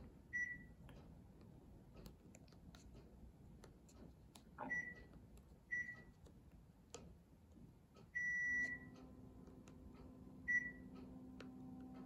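Panasonic CS-222CF-W room air conditioner beeping as it receives remote-control commands: four short high beeps and one longer beep, among the faint clicks of the remote's buttons being pressed. Right after the long beep a steady low hum starts.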